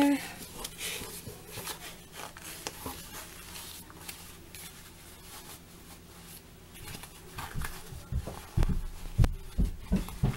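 Hands handling and rolling up a bundle of precut quilting cotton fabric, with soft rustling of the fabric. A run of dull low thumps comes near the end.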